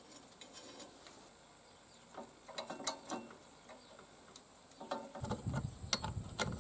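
Hand tap in a tap wrench cutting a thread into a steel tube, giving faint scattered metallic clicks and creaks as it is turned. About five seconds in, louder scraping and clicking as socket cap screws are turned with a hex key against a metal clamp.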